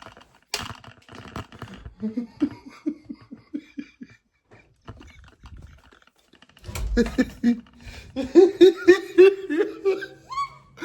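A person laughing in a rapid run of short pitched bursts, soft at first, then breaking into a louder, longer fit of laughter in the last few seconds.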